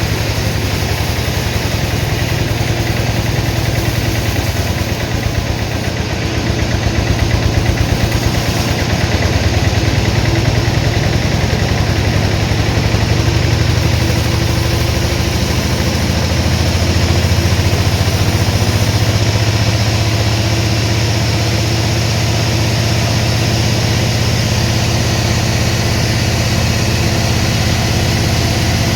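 Sawmill engine running steadily with an even low hum.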